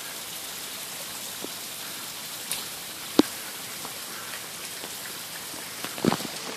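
Steady, even hiss of spattering water, with a single sharp click about three seconds in and a few quick knocks near the end.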